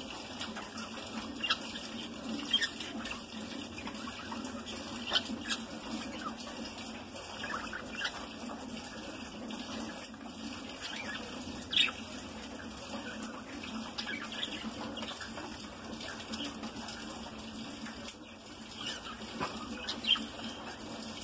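Budgerigars in an aviary giving scattered short chirps, with a few sharper calls or clicks standing out, over a steady background hiss.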